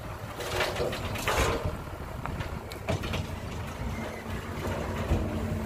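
Dump truck engine running as it tips a load of soil with its bed raised, with a loud hissing rush about a second in; the engine settles to a steady hum near the end.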